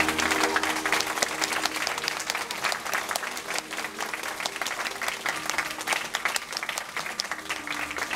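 Audience applauding, many hands clapping densely, with the last of the dance music faint underneath in the first couple of seconds.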